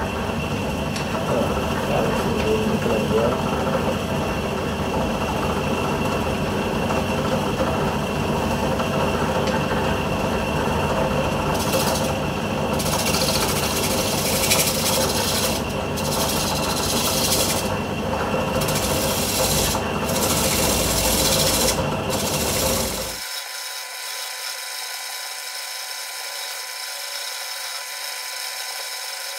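Wood lathe running while a fingernail-ground bowl gouge cuts the spinning wooden bowl, a steady shaving and scraping that comes and goes in patches as the cuts are taken. About 23 seconds in the cutting stops abruptly, leaving a quieter, steady hum.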